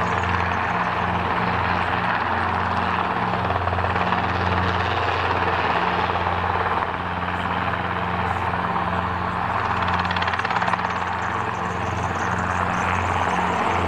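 Small two-bladed mustering helicopter flying low over the trees, its rotor beating and engine droning steadily, a little fainter about halfway through.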